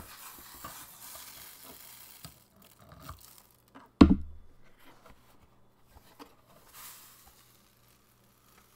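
Loose sand from a Zen garden kit hissing and trickling as it spills, with one loud thump about four seconds in and a shorter hiss of sand near the end.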